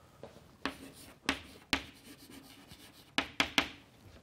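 Chalk writing on a blackboard: a series of short, sharp chalk taps and strokes, ending in a quick run of three near the end.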